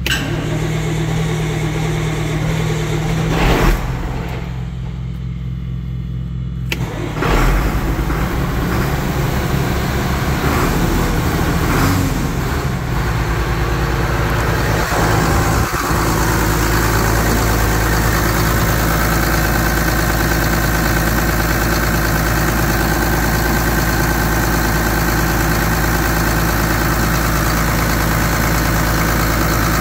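Diesel tractor engine cranked and started just after air was bled from its fuel system: uneven chugging with a couple of surges in the first seconds, running unevenly for a while, then settling into a steady idle.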